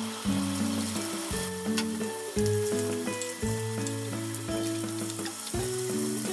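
Bacon sizzling as it fries in a small rectangular frying pan, turned and stirred with chopsticks, with green pepper going in near the end. Background music with a run of distinct notes plays over it and is the louder sound.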